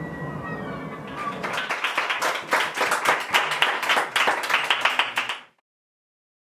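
Audience applauding in dense, loud clapping that cuts off suddenly about five and a half seconds in. During the first second, electronic sounds from a speaker with steady high tones and small chirps are still playing before the clapping starts.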